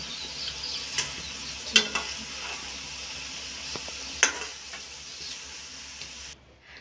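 Maggi noodles and vegetables sizzling in a metal kadhai while a slotted metal spatula stirs them, knocking against the pan about four times. The sizzle cuts off abruptly near the end.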